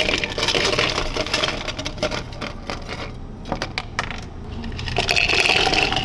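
Ice cubes poured from a stainless steel scoop into tall clear cups, clattering and clinking. One pour comes at the start and another near the end, with scattered clinks of single cubes between.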